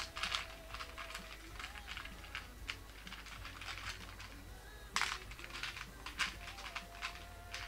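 Plastic LEGO bricks clicking as they are handled and pressed together: a string of irregular sharp clicks, the loudest about five seconds in and again about six seconds in.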